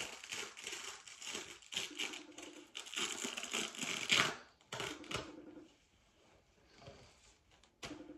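Crinkling and rustling of surgical dressing pads and an abdominal binder being handled and pulled apart, in quick irregular strokes that are busiest for the first five seconds and then thin out, with a sharp click near the end.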